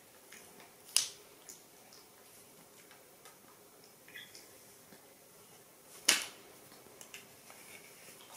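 Two sharp clicks about five seconds apart, with a few faint ticks between them.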